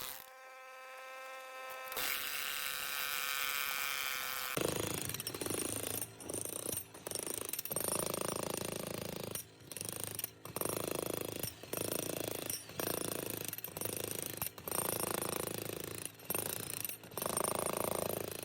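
Jackhammer breaking up old concrete, running in a string of short bursts about a second long with brief pauses between them. It opens with a couple of seconds of a steady pitched tone.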